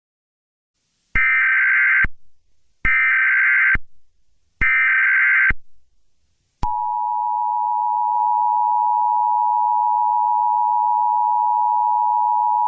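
Emergency Alert System tones: three short buzzing bursts of SAME digital header data, each just under a second long, then, about halfway through, the EAS two-tone attention signal starts and holds steady.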